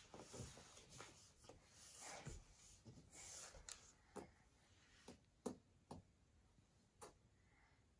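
Faint scuffing and rubbing of a baby's hands, knees and clothes sliding on a wooden tabletop as she climbs up and settles, then about five light taps on the wood in the second half.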